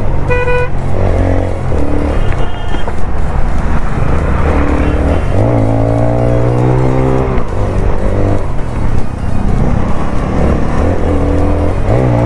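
Bajaj Pulsar motorcycle with an aftermarket exhaust under way, its engine note rising as it revs up and dropping back several times through gear changes. There is a short horn beep about half a second in.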